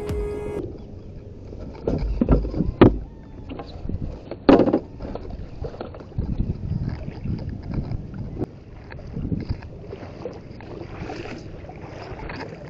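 Knocks and bumps on a small wooden outrigger boat as someone moves about it and handles it, the loudest about four and a half seconds in, over a rough background of water and wind.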